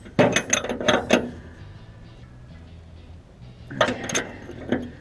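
Metal hand tools clinking and rattling against steel parts, in two bursts of about a second each: one just after the start and one about four seconds in.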